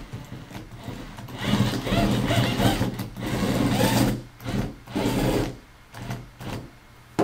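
Electric drive motors and gearboxes of a small mecanum-wheel robot whining in bursts as it drives and turns. The pitch rises and falls with the throttle. It is loudest from about one and a half to five and a half seconds in, then dies down, with a sharp click at the very end.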